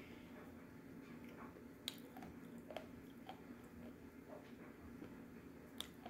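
Faint close chewing of crunchy baked edible clay, small crunches and clicks with a few sharper cracks about two, three and six seconds in, over a low steady hum.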